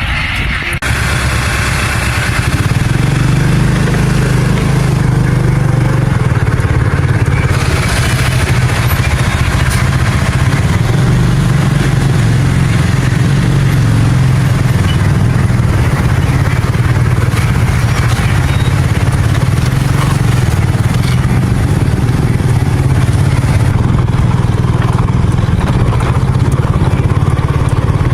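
A motor vehicle's engine running steadily under load, loud and close, with a constant low drone that picks up slightly about two seconds in.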